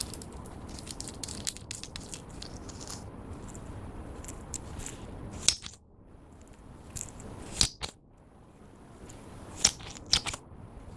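Close-up crackling and sticky clicking as clear slime is worked with lipstick and lip gloss. There are many small crackles, then several sharper, louder snaps in the second half.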